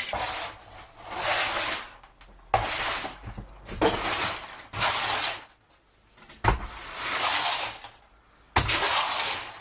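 Demolition work on a caravan's interior: about eight harsh, noisy strokes in a row, each lasting under a second, several starting with a sharp knock.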